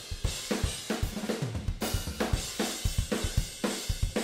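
Raw multitrack recording of a pop punk drum kit played back: kick, snare and cymbals in a fast, busy beat with a constant cymbal wash. The snare comes largely through the overhead and room mics, which give it its body.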